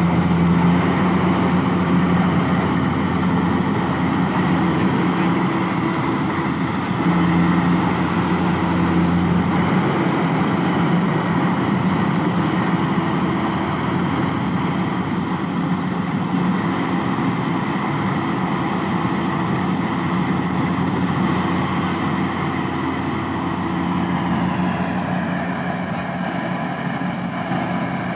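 Kubota DC70 combine harvester's diesel engine running steadily with its machinery. The engine hum weakens for a long stretch in the middle and comes back strongly near the end.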